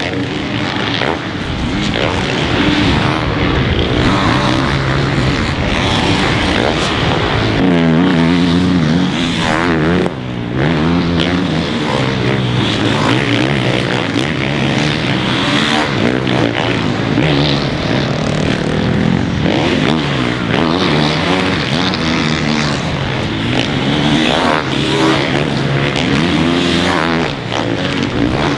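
Four-stroke supercross dirt bike engines revving hard and shutting off again and again as they race around the track, their pitch rising and falling repeatedly, with several bikes heard at once.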